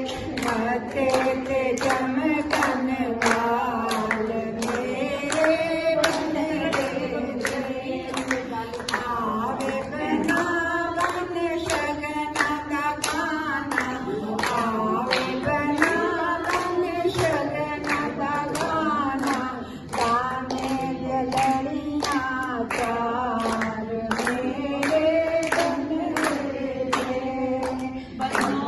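A group singing a traditional wedding song together, with hand-clapping keeping a steady beat of about two claps a second.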